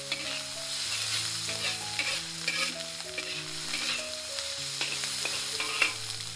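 Fried rice with vegetables and ketchup sauce sizzling in a hot pan as a spatula stirs and tosses it, with repeated scrapes and knocks of the spatula on the pan; one sharp knock comes near the end.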